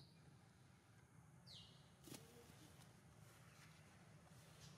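Near silence: faint outdoor ambience with a low steady hum. About a second and a half in comes one short, high chirp that falls in pitch, followed by a faint click.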